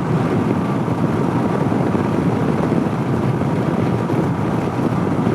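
Honda CB500X parallel-twin engine running at a steady speed, mixed with steady wind rush over the microphone.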